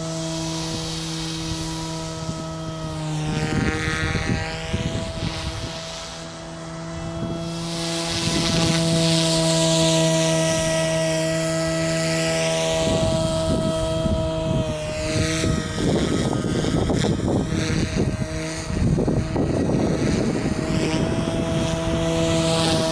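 SAB Goblin Fireball RC helicopter in flight: a steady, pitched rotor hum with a hissing whine that swells and fades as it moves about. It is broken by spells of rapid chopping about three seconds in and again from about thirteen seconds on, as the helicopter manoeuvres.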